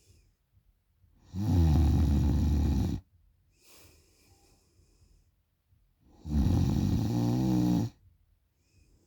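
A woman snoring loudly: two long rattling snores about five seconds apart, each lasting about a second and a half, with quiet in between.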